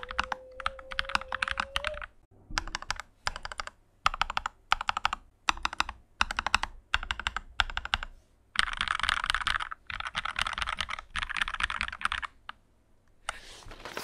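Typing on a modded KEMOVE K68 mechanical keyboard with Feker Matcha switches on Lumia springs, modded stabilizers and a tape mod: fast runs of keystrokes lasting a second or two with short pauses between them, the keystrokes densest about two-thirds of the way through.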